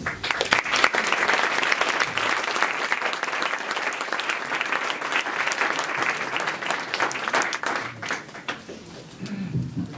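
An audience applauding, a dense patter of many hands clapping that thins out and dies away about nine seconds in.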